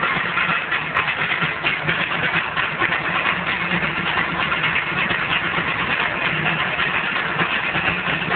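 Loud, dense crowd and stage noise from an open-air show, with a steady low hum underneath and no clear words or melody.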